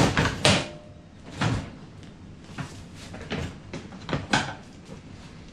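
Irregular knocks and clunks from Honda S2000 seat parts being handled and fitted back together, loudest at the start and again around four seconds in.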